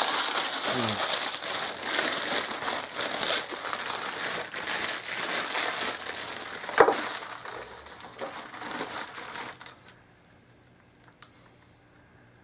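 Packaging being unwrapped and handled, crinkling and rustling steadily, with one sharp knock about seven seconds in. The crinkling stops about ten seconds in, leaving a few faint clicks.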